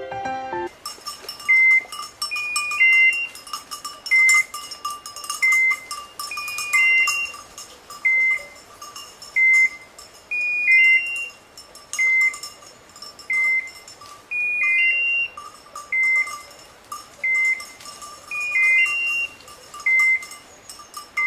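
Hunting dog's electronic beeper collar beeping steadily about once every second and a half, some beeps led by two quick higher notes. Faint rustle and snapping of brush underneath.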